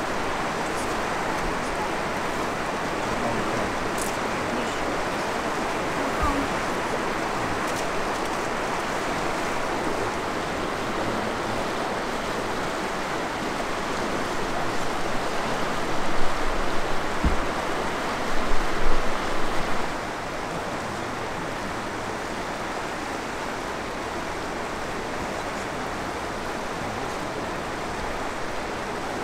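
Steady rushing of the Firehole River running high and fast with floodwater, a dense, even water noise that swells louder for a few seconds past the middle. About two-thirds of the way through it drops to a quieter steady background.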